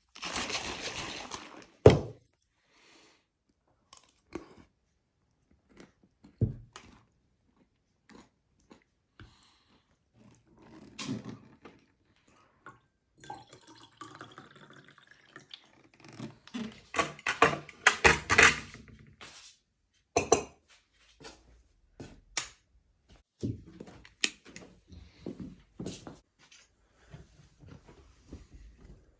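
Scattered household handling noises: irregular knocks and clicks, with a sharp thud about two seconds in and a busy cluster of clattering a little past the middle.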